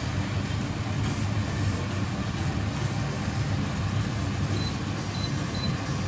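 Teriyaki sauce bubbling and sizzling steadily in a frying pan with pork-belly-wrapped tofu rolls as it reduces and thickens.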